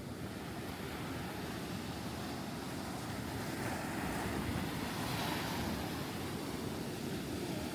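Surf breaking on a beach with wind buffeting the microphone; the wash swells louder about four to five seconds in.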